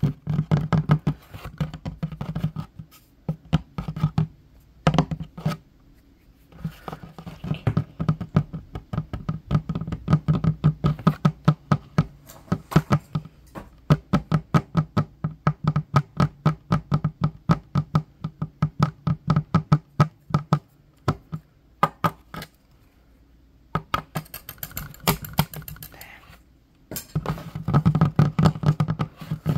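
Fingertips and fingernails tapping rapidly on a wooden tabletop in fast, dense runs, each tap a sharp click with a low knock. The runs are broken by a few short pauses.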